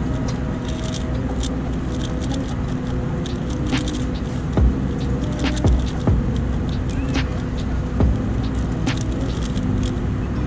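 Steady low rumble of an airliner cabin in flight, with scattered sharp clicks at irregular intervals.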